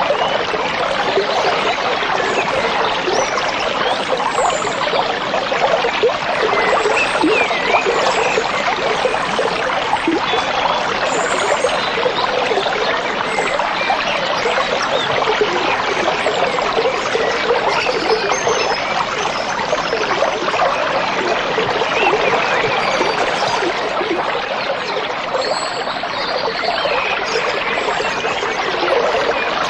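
A stream babbling and trickling steadily over stones, with scattered short bird chirps above it.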